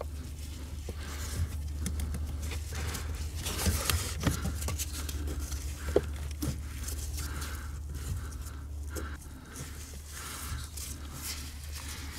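Rustling of nitrile gloves with small scrapes and clicks as hands tie a string to the end of a car's accelerator cable, with one sharper click about six seconds in, over a steady low hum.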